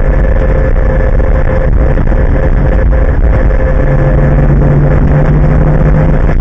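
Car cabin noise at highway speed, around 85 to 90 mph: engine, tyre and wind noise in a dense steady rush, with a low engine hum that grows stronger about four seconds in.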